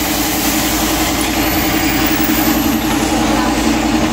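Air compressor running steadily and feeding a gravity-feed spray gun, with the hiss of air and clear lacquer being sprayed.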